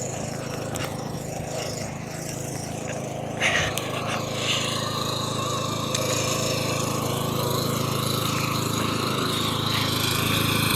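Craftsman riding lawn mower's 13.5 horsepower Briggs & Stratton engine running steadily, getting louder toward the end, with a short burst of noise about three and a half seconds in.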